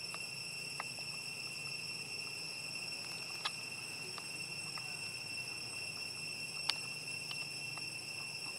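Steady, high-pitched drone of insects, a chorus of unbroken tones, with a few short sharp clicks, the loudest about three and a half seconds and nearly seven seconds in.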